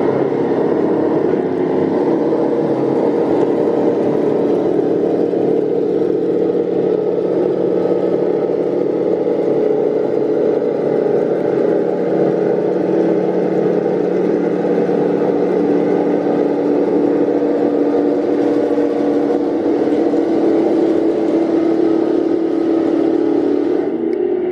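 Tamiya 1/16 Centurion RC model tank driving, its sound unit playing a simulated tank-engine sound through the model's speaker, with the whir of the drive motors and gearbox. The engine note holds steady.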